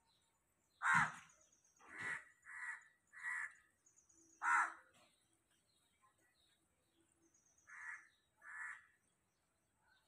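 A crow cawing off-screen: about seven short, harsh caws, with a run of four in the first few seconds and two more near the end. The loudest caws come about a second in and at about four and a half seconds.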